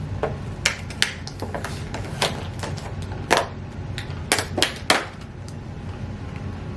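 Snack packaging being handled: irregular sharp clicks and crinkles as a chocolate peanut butter cup and its wrapper are handled, the loudest clicks a little past the middle.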